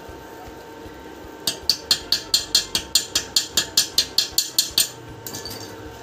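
Steel door hinge being struck with a metal tool: a fast, even run of about seventeen sharp metallic knocks, roughly five a second, starting about a second and a half in, followed by a few lighter taps.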